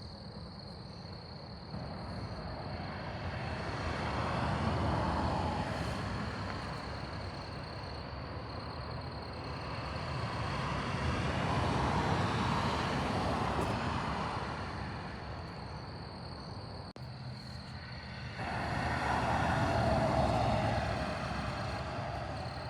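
Three vehicles drive past one after another, each one's engine and tyre noise swelling up and fading away, the last starting abruptly. A steady high chirring of insects carries on underneath.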